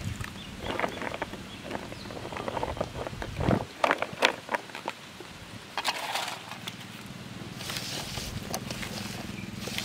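Hand mixing sliced bitter gourd into a wet masala paste in a steel bowl: irregular squelches, rustles and clicks of the slices against the bowl, as more raw slices are tipped in from a plate.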